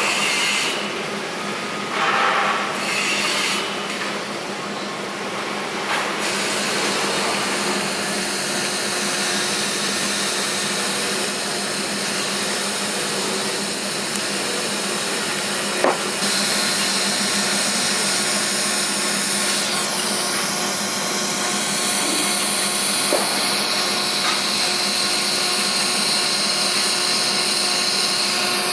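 TIG welding arc on a P11 chrome-moly steel pipe, running steadily with a hiss and an even hum during the root reinforcement pass at 160 amps. The sound is patchy for the first few seconds, there is a single sharp click about halfway through, and after that the hiss is brighter.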